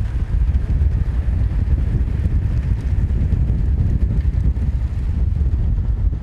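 Loud, uneven low rumble of wind buffeting the microphone of a camera travelling at racing speed alongside the cyclists.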